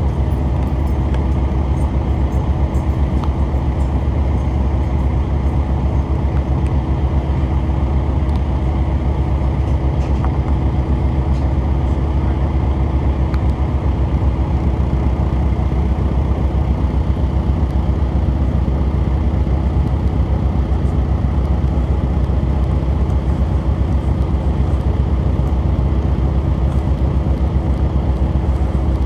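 Diesel railcar engine running steadily, heard from inside the car: a constant low rumble with a steady hum over it.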